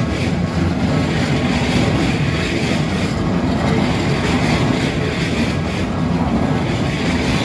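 Keikyu electric train passing over a railroad crossing: a loud, steady rumble of wheels and running gear with no let-up.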